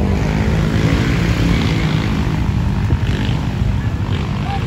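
Strong wind buffeting the microphone: a loud, uneven low rumble that cuts off suddenly at the end.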